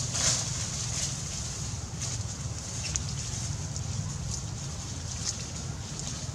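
Outdoor background noise: a steady low rumble with faint, irregular high clicks and chirps over it.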